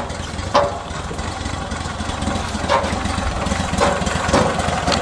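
Gator Tail GTR40XD surface-drive mud motor on a duck boat, running steadily underway. A few sharp knocks sound over the engine, the loudest about half a second in.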